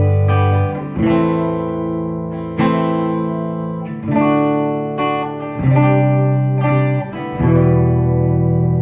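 Danelectro Convertible guitar, with a lipstick pickup and a piezo, playing a slow run of chords. Each chord is struck and left to ring about every second or so, and the last one rings on near the end.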